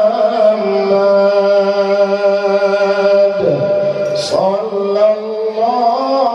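A man singing sholawat solo in a high, powerful voice into a microphone, holding long drawn-out notes. He breaks off briefly a little past the middle, then comes back in on a rising phrase.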